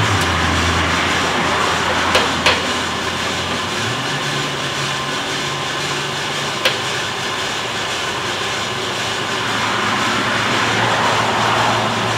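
Bideli 2 kg propane drum coffee roaster running mid-roast: a loud, steady mechanical noise of burner, fan and turning drum with a low hum. A few sharp clicks at the machine come about two seconds in, again just after, and once more at about six and a half seconds.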